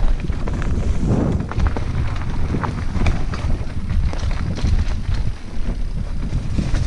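Mountain bike descending a dry, rocky singletrack at speed: tyres rolling over dirt and stones, with frequent short knocks and rattles from the bike, over a heavy low rumble of wind on the camera's microphone.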